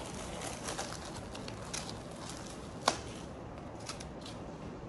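Light clicks and rustles of picture frames and their paper and cardboard inserts being handled, with one sharp click about three seconds in, over a steady low room hum.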